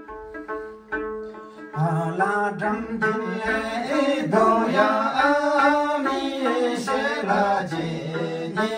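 A tungna, the small Tamang plucked lute, playing a repeating plucked figure; about two seconds in, men's voices join in, singing a Tamang selo together over it.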